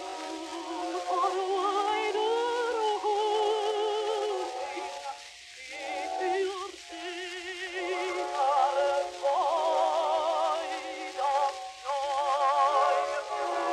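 A female contralto voice singing a song with wide vibrato, in phrases with short breaths between them, played back from a somewhat worn 78 rpm gramophone record.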